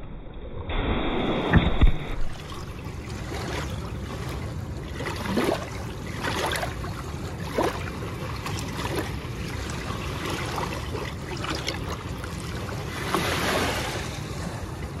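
Moving water and wind noise on the microphone, with a loud low buffeting rumble about a second in and scattered splashes after.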